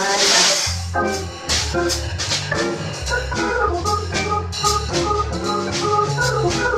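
Live jazz organ trio playing: organ chords over a stepping organ bass line, with hollow-body electric guitar and drums keeping time on the cymbals. A cymbal crash rings out right at the start.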